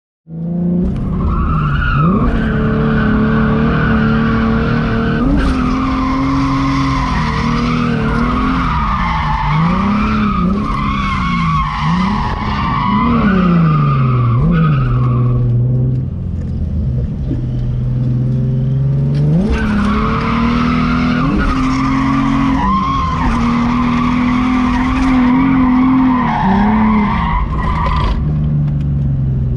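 A car drifting: the engine revs up and down repeatedly while the tires squeal in two long stretches, the first lasting about fifteen seconds and the second starting about twenty seconds in.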